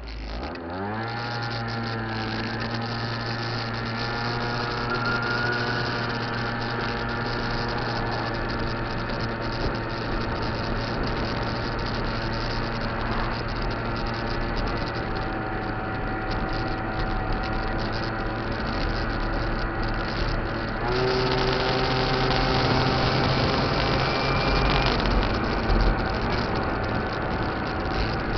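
Kymco Cobra (Top Boy) two-stroke scooter engine pulling away, its note rising quickly in the first second or so, then running at a steady cruising speed. About two-thirds of the way through, the engine note steps up and runs a little louder.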